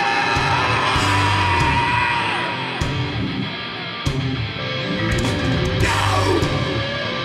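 Hardcore punk band playing live, loud distorted guitars and drums with yelled vocals; a held high guitar note bends down about a second in.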